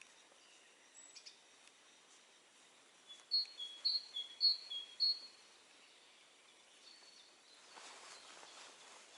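A small songbird sings a short phrase of four repeated two-note chirps, each a high note dropping to a lower one, about three seconds in, over a quiet outdoor background. Near the end, soft rustling footsteps begin.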